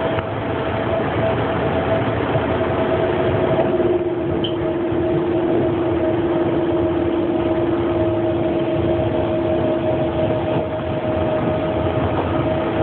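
Train running, heard from inside the passenger car: a steady rumble of the running car with a steady whining tone, and a lower steady tone joining about three seconds in.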